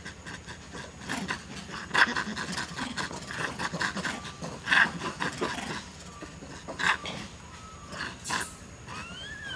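Long-tailed macaques making short, rough, breathy calls in uneven bursts, the loudest about two seconds in, near the middle and near the end. A single rising-then-falling chirp comes just before the end.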